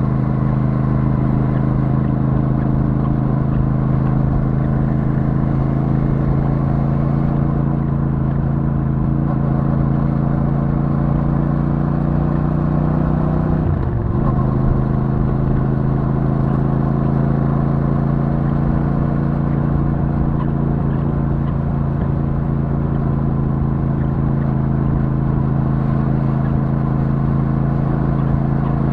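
Royal Enfield Super Meteor 650's parallel-twin engine through its stock exhaust, running steadily at cruise. The engine note creeps up slowly, dips sharply for a moment about halfway through, then holds steady again.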